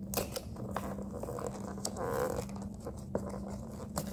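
Plastic toy packaging being pulled and torn open by hand: scattered crinkles, clicks and short ripping sounds.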